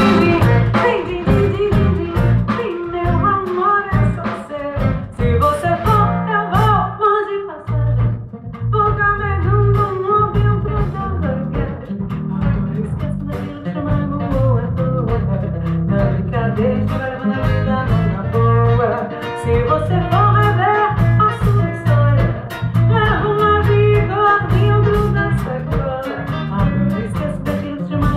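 Live band music with singing over guitar and bass guitar, a steady strong low end throughout, with a brief drop in level about eight seconds in.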